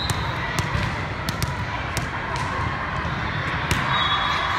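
A volleyball bouncing on the indoor court floor as a player readies her serve, then struck, heard as several sharp knocks over the steady murmur of a gym crowd.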